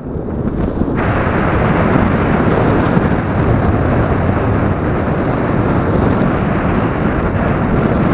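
Wind rushing over the camera microphone as a tandem paraglider flies, a loud, steady buffeting noise that grows stronger about a second in.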